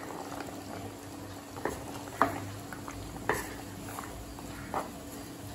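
Wooden spatula stirring a freshly added coconut paste into a simmering moong dal gravy in a metal pot, with a few short knocks of the spatula against the pot, over a faint steady hum.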